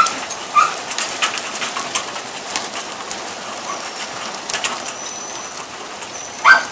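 Steady rain falling on a backyard, with scattered sharp drop impacts, densest in the first few seconds. A short high animal call sounds near the start and again at the very end, and faint thin chirps come in the middle.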